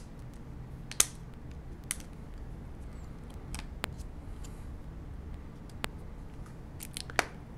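Hard clear plastic case half being pressed and snapped onto an Oppo Find N2 Flip folding phone: about seven scattered sharp plastic clicks and taps, the sharpest about a second in.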